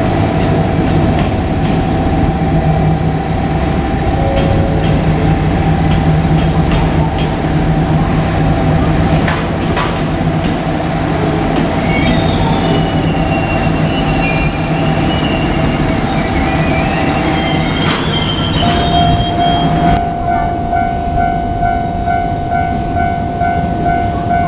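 JR Kyushu KiHa 200 diesel railcar running, with a steady low drone that drops away about twenty seconds in. Thin high squealing tones sound over it through the middle stretch.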